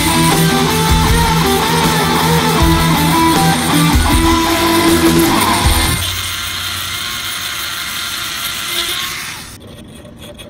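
Guitar-led background music, electric guitar prominent, which stops about six seconds in; a steady hissing, grinding-like noise with no notes follows for about three seconds, then fades.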